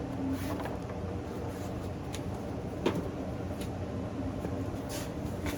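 Boxed fireworks and cardboard being handled, with scattered light rustles and knocks and one sharper tick about three seconds in, over a steady background hum.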